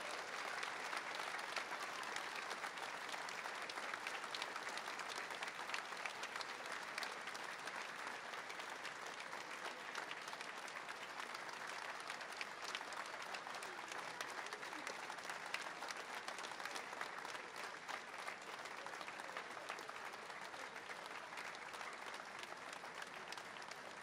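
Crowd applauding steadily at length, a dense patter of many hands that eases off a little towards the end.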